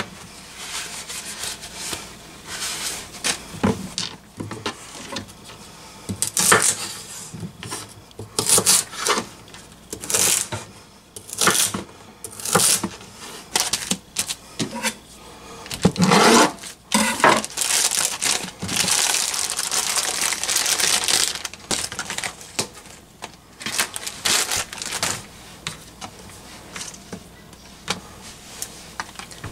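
Kitchen prep sounds: a knife cutting celery on a plastic cutting board, with sharp knocks and clatter, then a plastic produce bag crinkling as green onions are taken out of it.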